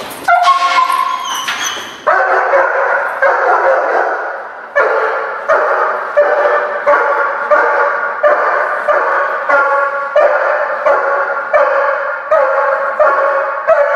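German Shepherd protection dog barking in a steady, rapid series, about one bark every 0.7 s, beginning about two seconds in. This is a bark-and-hold alert: the dog has found a hidden person behind a door during a house search and is holding them in place by barking.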